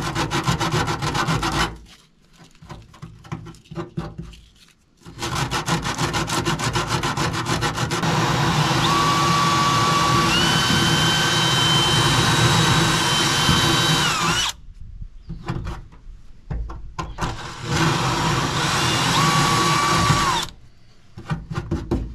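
Cordless DeWalt drill running in three bursts, its bit cutting at the edge of a hole in a pickup bed's sheet-metal side. The longest run, in the middle, carries a thin high squeal from the bit on the metal.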